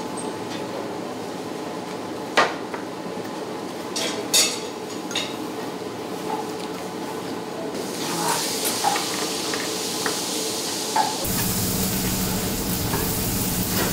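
A few clinks of a metal spoon against ceramic bowls. Then, from about eight seconds in, a steady sizzle of a steak searing on a wire grill over charcoal. A low hum joins the sizzle a few seconds later.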